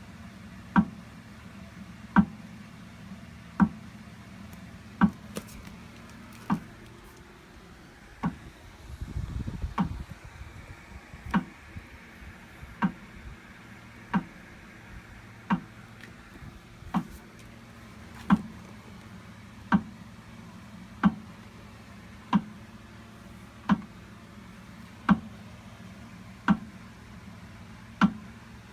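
Alinco AFB6215 exercise bike clunking once per pedal stroke, a dull knock about every second and a half over a steady low hum. The owner puts the noise down to heat building up after about ten minutes of pedaling. A low rumble breaks in about eight seconds in.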